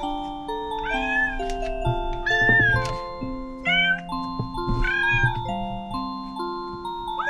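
A cat meowing four times, each a long, drawn-out call that rises and falls, over background music with a simple melody of held notes.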